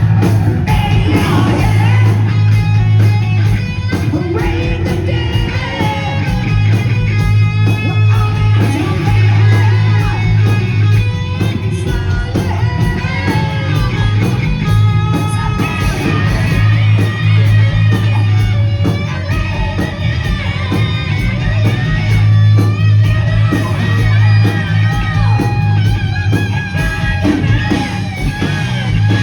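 1980s-style hard rock played loud: a singer shouting and singing over distorted electric guitar, heavy bass and pounding drums.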